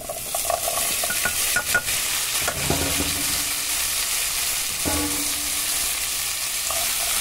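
Cut okra sizzling steadily in hot lard in a pot, the frying starting as the pieces are tipped in. A couple of knocks ring briefly about three and five seconds in.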